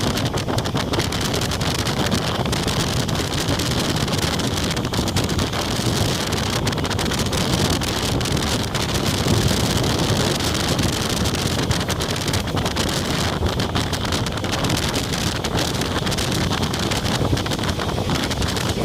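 Steady rush of wind buffeting the microphone from a moving passenger train, with the train's running noise underneath.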